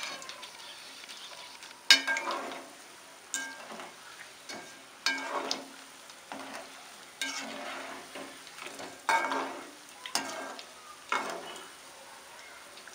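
Bondas deep-frying in hot oil with a steady sizzle. A metal slotted ladle stirs them around the pan, giving a sharp clink and a swell of sizzling every second or two.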